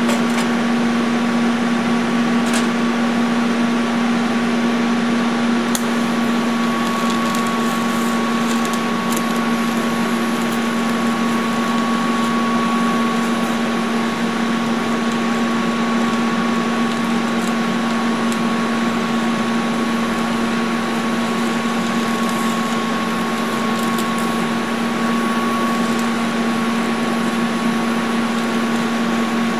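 Steady electrical hum of a Lincoln TIG200 Squarewave TIG welding set running during TIG welding of silicon bronze: a low tone with a fainter, higher whine, unchanged throughout, with a few faint ticks in the first ten seconds.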